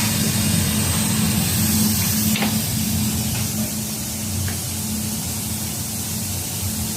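Two-saddle mattress quilting machine running: a steady low hum with a hiss over it, and one short sharp tick about two and a half seconds in.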